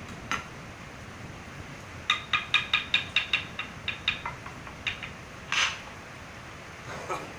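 Hammer driving a nail into a wooden frame: a fast run of a dozen or so ringing metal-on-nail taps, then a few single knocks and a short scrape.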